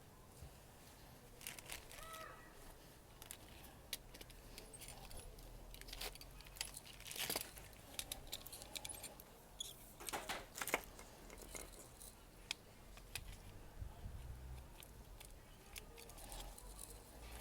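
Faint metal clicks and rattles of a UPVC door's multipoint lock mechanism being worked by hand as the newly fitted centre gearbox is tested, with the loudest clusters about seven and ten seconds in.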